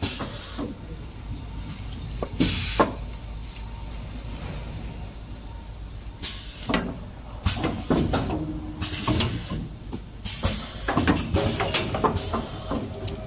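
Kitchen towel roll packing machinery running with a steady low hum, broken by repeated clacks and short hisses from its pneumatic cylinders and moving parts, coming more often in the second half.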